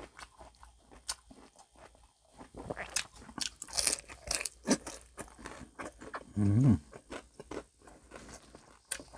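Close-up crunching and chewing of crispy fried food in the mouth, a dense run of sharp crackling bites. About six and a half seconds in there is a short low vocal hum.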